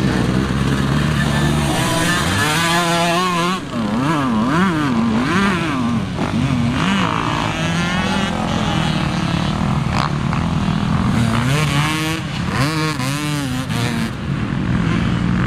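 Motocross dirt bike engines running on the track, their pitch rising and falling sharply as the riders work the throttle through the turns, with the busiest revving a few seconds in and again near the end.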